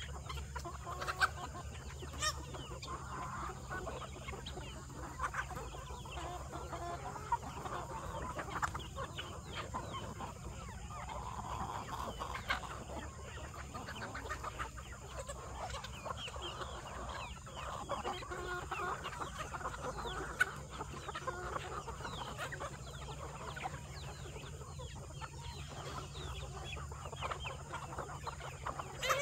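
A flock of chickens clucking and chattering without a break, with scattered sharp clicks over a steady low hum.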